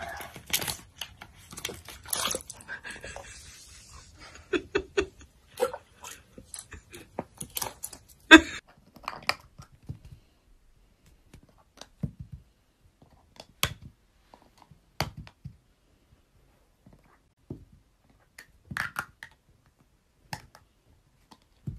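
A duck dabbling mealworms out of a bowl of water, a dense run of bill clicks, slurps and crackles for about the first ten seconds. After that come only scattered light knocks, plastic stacking cups being pushed about on carpet by a small furry pet.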